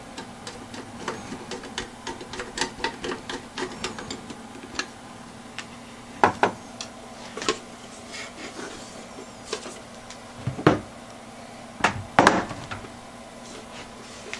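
Hands working on the metal and plastic parts of a Dell Inspiron 3646 desktop's case and hard drive cage: a quick run of light clicks and taps, then a few louder knocks spread over the second half.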